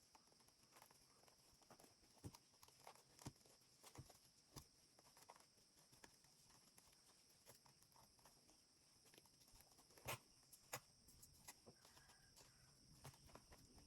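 Near silence: faint, scattered small clicks and taps over a steady hiss, with two slightly louder clicks about ten seconds in.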